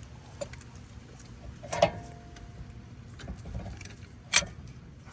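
Metal clamp and brake caliper clinking as the clamp is fitted over the caliper piston to compress it: two sharp metal clinks a couple of seconds apart, the first ringing briefly, with light handling noise between.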